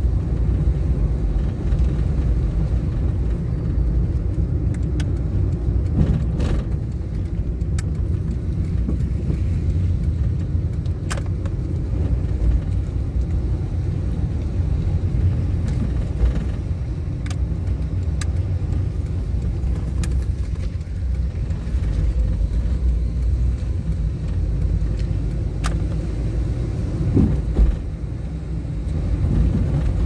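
Nissan March (Micra) driving, heard from the dashcam: a steady low rumble of road and engine noise, with a few scattered sharp clicks.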